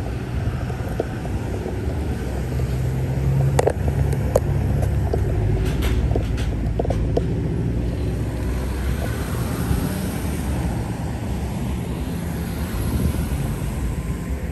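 Street traffic: a steady low rumble of car engines, with a few short knocks from the phone being handled about four to seven seconds in.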